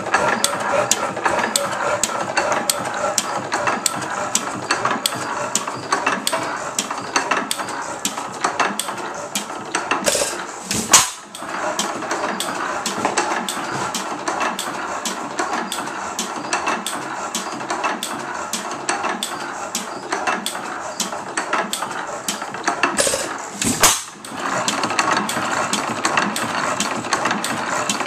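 A 1903 Fairbanks Morse type N hit-and-miss gasoline engine running, with a rapid, even clicking and clatter from its valve gear and moving parts, on its first run after a complete teardown. Two louder bangs stand out, about thirteen seconds apart.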